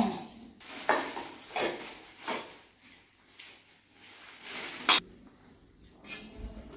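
Dishes and stainless-steel food containers clinking and knocking as they are handled, in a handful of separate strokes. The sharpest clack comes near five seconds in.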